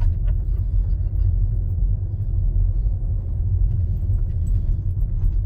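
Steady low rumble of a car driving slowly, heard inside the cabin: engine and tyre noise on the road.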